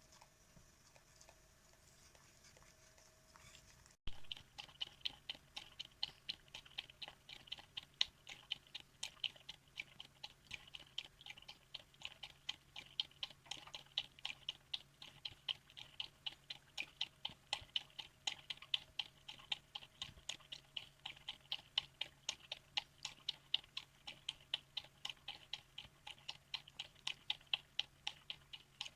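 Old miniature dachshund lapping soup from a bowl: a steady run of short wet licks, two or three a second, starting suddenly about four seconds in.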